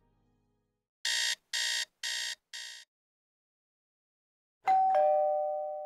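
Sound effect laid over dead silence: four short electronic beeps about half a second apart, then a two-note falling doorbell ding-dong chime that rings out slowly.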